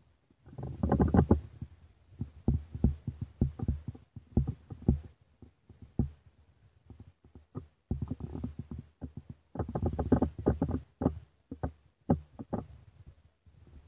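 Irregular low rumbling and dull thumps on the microphone, coming in bursts with short quiet gaps.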